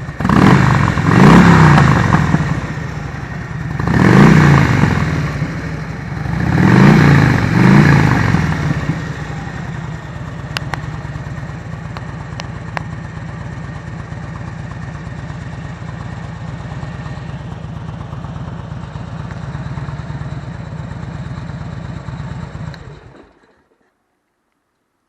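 Motorcycle engine idling, blipped up in revs several times during the first eight seconds or so, then idling steadily until it falls silent about 23 seconds in.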